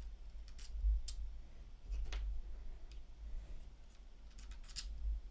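A few scattered light clicks and taps of small paintball-marker parts being handled, with a quick cluster of clicks near the end, over a low rumble of handling.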